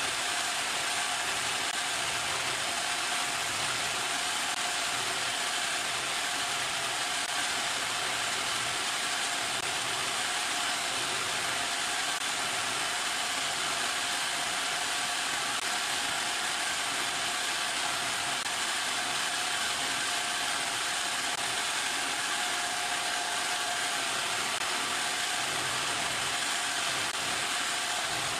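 Homemade electric coconut grater running steadily, its motor whirring while a coconut half is pressed against the spinning grater blade, scraping out the meat.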